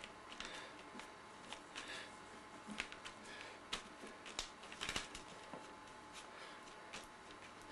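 Fingers dabbing and pressing paint onto a canvas: faint, irregular taps and clicks with soft rustling, and a quick cluster of taps about five seconds in.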